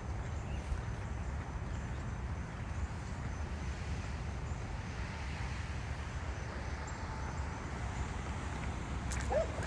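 Steady low rumble of outdoor background noise on a building site, with a brief rising chirp near the end.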